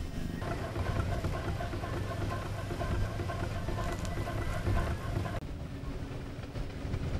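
Miniature steam traction engine running, its flywheel and motion turning over steadily. About five seconds in, the sound changes to a miniature steam wagon driving on gravel.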